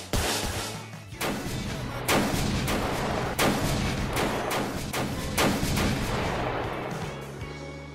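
Dance music with steady bass notes and a series of loud, heavy percussive hits at uneven intervals, fading down near the end.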